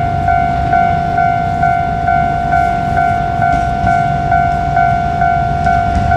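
Japanese level crossing alarm ringing steadily at about two strokes a second, with the low rumble of a passing train underneath.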